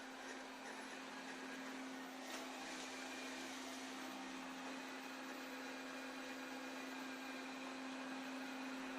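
Robot vacuum cleaner running steadily, a low motor hum under a soft whirring hiss, with one faint click about two seconds in.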